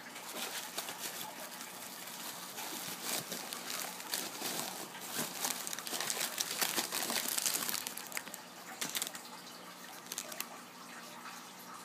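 Bubble wrap and plastic packaging crinkling and rustling as it is pulled open by hand, busiest in the middle and easing off towards the end.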